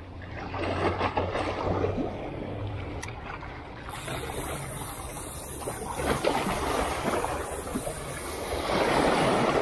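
Small waves washing against shoreline rocks, swelling louder about a second in, again around six seconds and near the end.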